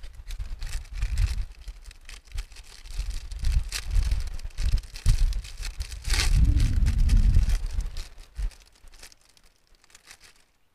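Plastic food wrapper crinkling in the hands and being torn open, with one longer, louder rip about six seconds in. Uneven low rumbling thumps run underneath, and it goes nearly quiet near the end.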